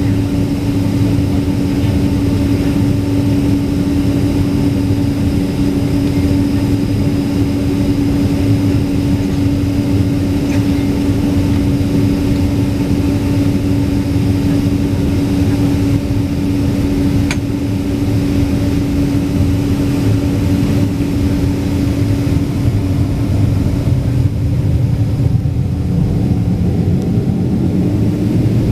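Steady jet airliner engine noise: a deep rumble under a constant drone-like hum, the hum creeping up slightly in pitch near the end. A single brief click is heard about seventeen seconds in.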